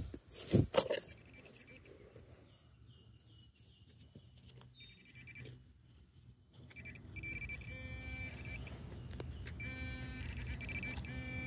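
Handheld metal-detecting pinpointer probing a dig hole: a high electronic tone, faint at first, that turns from about seven seconds in into a louder, rapid pulsing beep as the probe closes on a coin in the soil. A few sharp chops of a digging knife into the dirt come in the first second.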